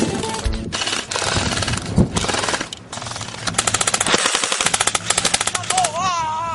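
Rapid automatic gunfire, with a long, fast string of shots many times a second starting about three and a half seconds in. A wavering, gliding tone enters near the end.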